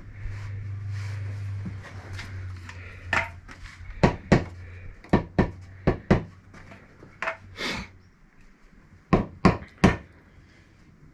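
Rubber mallet knocking on aerated-concrete (Ytong) blocks, about a dozen sharp knocks in small groups from about three seconds in, as the blocks are tapped down level under a spirit level. A low hum runs through the first few seconds.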